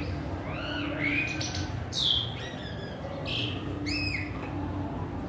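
Asian pied starling (pied myna) singing a varied series of short squeaky whistles and chirps, the loudest a sharp downward-sweeping note about two seconds in.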